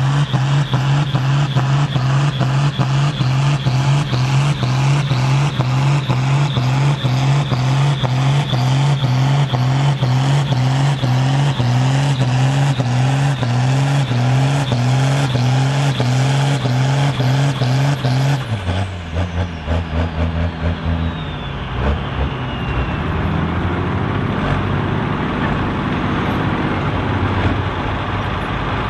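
Ford TW-25 tractor's turbocharged six-cylinder diesel running hard under full load as it pulls a heavy sledge, a loud, steady drone. About eighteen seconds in the engine note drops suddenly to a lower, rougher rumble, with a falling whine.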